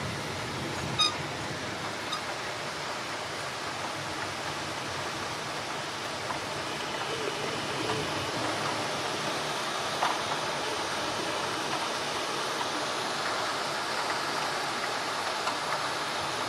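Heavy downpour: a steady rush of rain falling on trees and the ground. A short sharp click about a second in.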